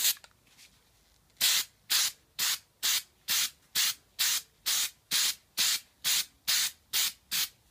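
Aerosol can of primer sprayed in short hissing bursts, about two a second, starting a little over a second in and going on for about fourteen bursts.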